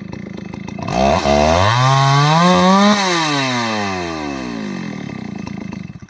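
Ported Solo 670 two-stroke chainsaw engine revving up hard about a second in and climbing to full revs. Then the revs fall steadily over about three seconds until the engine stops near the end.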